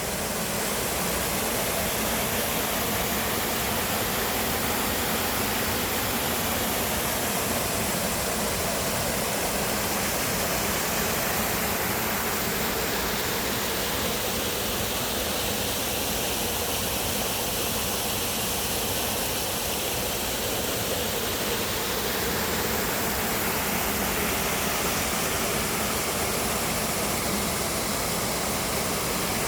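A steady, even rushing noise that holds the same level throughout, with no breaks or distinct events.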